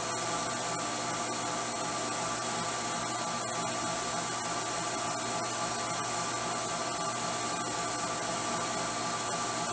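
CNC mill spindle driving a small end mill as it rough-cuts a coin die in 52100 tool steel: a steady high whine with several fixed tones over a hiss.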